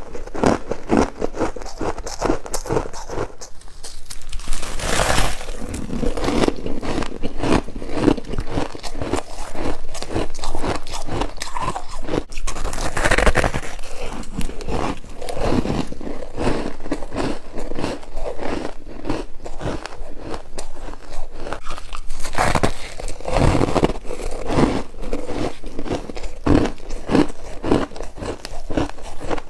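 Freezer frost being bitten and chewed: a dense run of rapid crunches.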